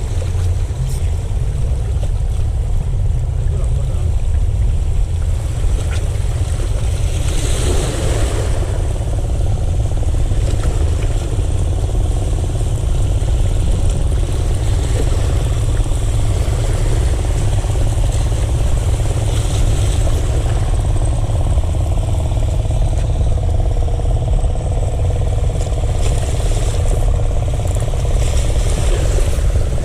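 A motor engine running steadily under a heavy low rumble, with no change in speed.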